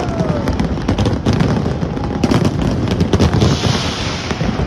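Fireworks exploding in rapid succession: dense booming and sharp crackling pops. A steady hiss joins about three and a half seconds in.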